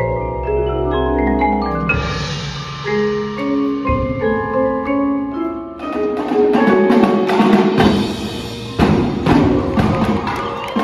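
Percussion ensemble music: marimbas and vibraphones play sustained chords over low held tones, with a shimmering cymbal wash about two seconds in. From about six seconds, sharp rhythmic drum hits from the drumline's snares and tenor drums join the mallets.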